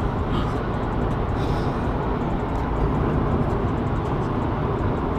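Steady road noise of a car driving at highway speed, heard from inside the cabin: a constant low rumble of tyres and wind.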